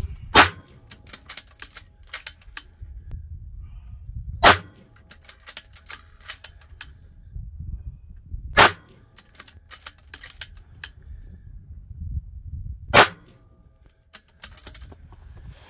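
Rifle firing handloaded rounds with CCI 450 small rifle magnum primers: four shots about four seconds apart, with fainter clicks between them over a low rumble.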